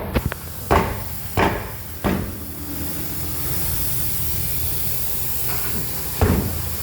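Sharp knocks of work going on in a garage: four or five in the first two seconds, then one more near the end, over a steady hiss.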